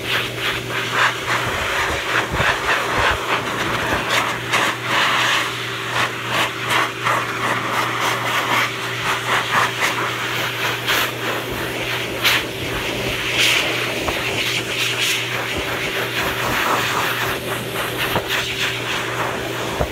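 High-velocity pet dryer blowing air through its hose and nozzle onto a dog's coat: a steady motor hum under a loud rushing hiss that keeps rising and falling as the nozzle moves through the fur.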